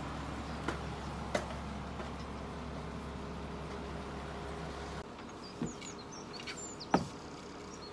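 A steady low mechanical hum that stops abruptly about five seconds in, followed by small birds chirping and a few sharp knocks, the loudest near the end.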